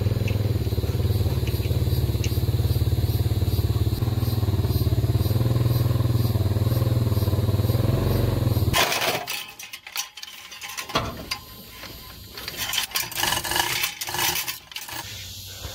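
A vehicle's engine running steadily at an even pitch as it pushes the engineless pickup in under the hoist. After a cut about nine seconds in, it gives way to scattered metal clicks, clanks and scrapes as the chain takes up and the 350 engine is lifted on it.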